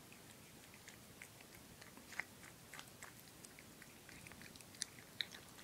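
A cat eating soft, rehydrated cat food from a bowl: faint, irregular chewing clicks, with a few louder ones about two seconds in and near the end.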